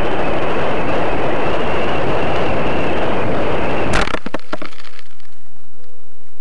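Air rushing over a model rocket's onboard camera microphone as it falls. About four seconds in, it lands with a sharp crack and a short rattle of clicks.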